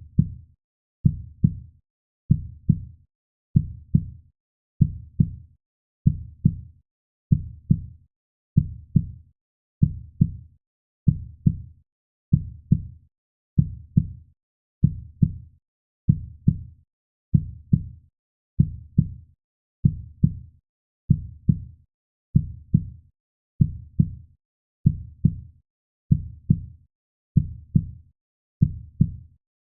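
A slow, steady heartbeat: low, muffled lub-dub double thumps repeating about once every 1.2 seconds, with silence between the beats.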